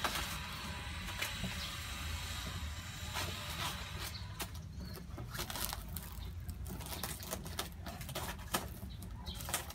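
Hands handling a taped cardboard box and its plastic wrapping: scattered faint clicks, ticks and rustles over a low, steady background rumble.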